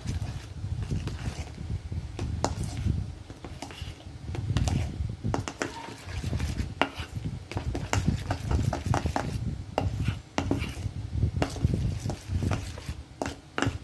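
A metal spoon clinking and scraping against a stainless steel bowl in irregular strokes while folding whipped cream into a chocolate mixture, over a dull low rumble.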